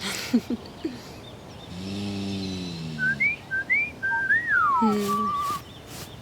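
Whistling: two short rising whistles, then a long whistle that slides down and a short wavering one, after a low hum about two seconds in.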